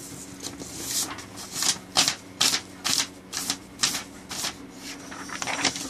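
A quick series of brushing, scratchy strokes across a sheet of drawing paper, about two a second, with a short pause shortly before a last few.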